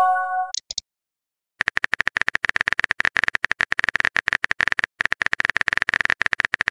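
A short multi-note message chime, then after a second of silence a fast, steady run of phone-keyboard typing clicks, broken once by a brief pause: a texting app's sent-message alert and typing sound effects.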